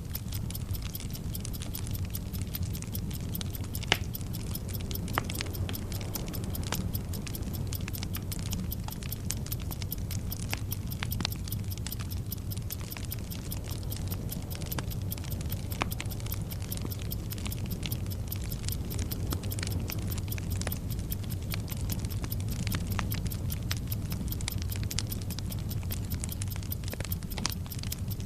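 Bomb-timer sound effect: steady, even clock ticking layered over the crackle and hiss of a burning fuse, with irregular sharper crackles and a low steady rumble underneath.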